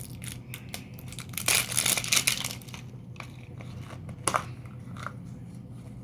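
Plastic toy packaging crinkling and tearing as it is handled and opened by hand, loudest in a dense stretch from about one and a half to two and a half seconds in, with scattered clicks and another short crackle near four seconds.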